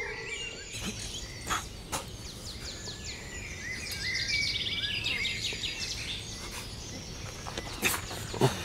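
Birds chirping and calling in rapid, repeated short notes over a steady outdoor hum, with a few sharp knocks and scuffs. The loudest of these come near the end.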